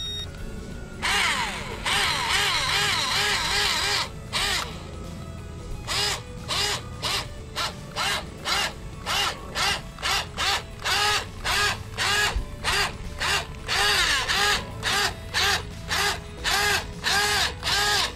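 Small brushed electric motor of a capsized JJRC Pentium S1 RC boat whining as it spins the propeller: one sustained run of a few seconds, then a string of short throttle blips, about two to three a second, each rising and falling in pitch. The blips are a failed attempt to make the upturned hull self-right.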